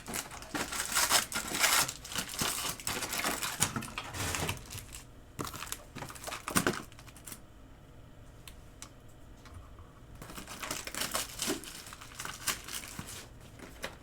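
Trading-card packs being handled and opened: foil wrappers crinkling and tearing, with clicks of cards being handled. The crinkling is busiest at first, goes quieter for a few seconds in the middle, then starts again.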